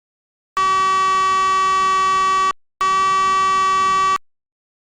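Electronic alarm buzzer sounding two long, steady beeps at one pitch, the first about two seconds long and the second shorter after a brief gap.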